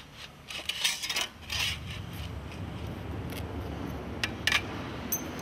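Metal clinks and scraping as a perforated metal plate sitting on a granite block is handled, a cluster of sharp clinks about a second in and a couple more near the end, over a low steady rumble.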